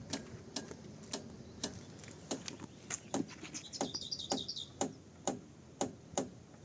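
Kia Rio X front-left suspension knocking faintly and sharply, about twice a second, as the steering wheel is rocked from side to side. It is the knock the owner traces to the front-left strut and judges not to be the strut bearing. A bird chirps briefly about four seconds in.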